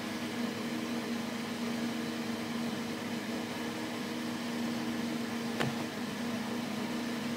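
Steady background hum and hiss, like a running fan or appliance, with one brief click a little after halfway.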